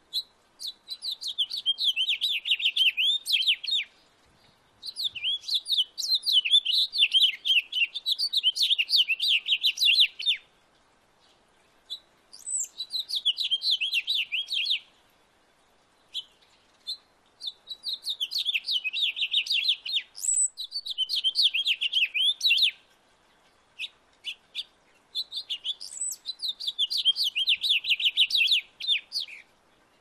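Male house finch singing: five long, rapid, jumbled warbling phrases, each lasting a few seconds, with short pauses between them.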